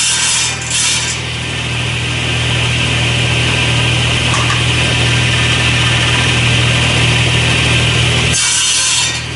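Table saw running steadily, its blade cutting short wooden blocks off a cleat on a crosscut sled. Harsher cutting noise comes briefly about a second in and again twice near the end.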